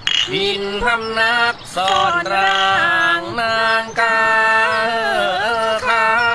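Soundtrack music with a sung melody: a voice holding long notes that slide and bend between pitches, over a steady low drone.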